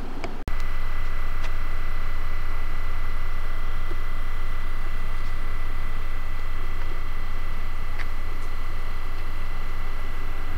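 Steady station platform ambience: a low rumble and hiss with a faint steady high tone. The sound drops out for a moment about half a second in, where the recording cuts.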